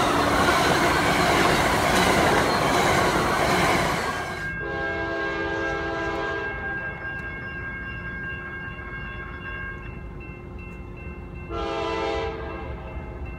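An Amtrak passenger train's cars rush past at about 80 mph with a loud roar of wheels on rail, which cuts off about four seconds in. After that, a distant diesel locomotive horn sounds twice: a long blast, then a shorter one near the end.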